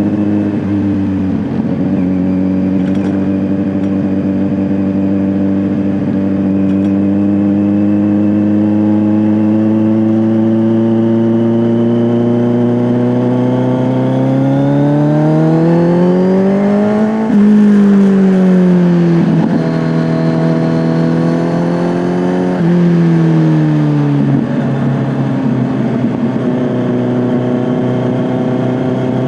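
Kawasaki Z900 inline-four through an SC-Project S1 exhaust, ridden on the road. The engine note climbs steadily under acceleration and drops suddenly about halfway through. It then jumps up in pitch twice, easing back down each time, and settles into a steady cruise.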